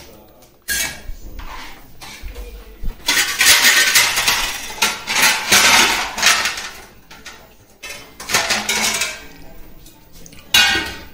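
Steel pots, vessels and utensils clattering as they are handled and moved about on a kitchen shelf, in several bursts, the busiest a few seconds in, with a sudden loud one near the end.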